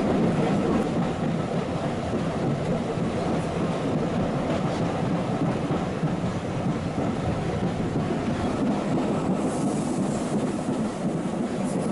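Steady rumble and running noise of a vintage wooden-bodied railway carriage in motion, its wheels rolling on the track, heard from inside the compartment.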